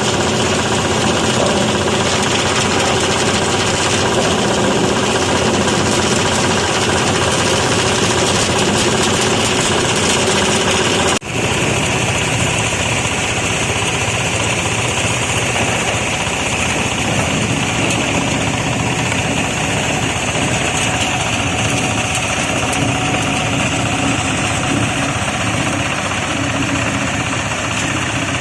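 Motor-driven machine for separating plastic from vegetable market waste, running steadily with a loud, continuous mechanical noise. About eleven seconds in the sound drops out for a moment, then carries on with a slightly different tone.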